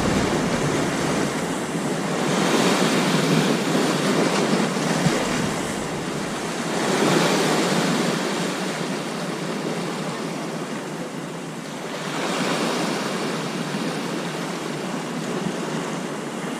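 Ocean surf washing against a rocky shoreline, a steady rush that swells and eases every five seconds or so.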